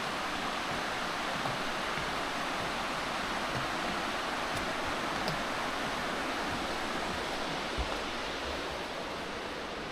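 Steady rush of flowing river water, an even hiss that holds level throughout.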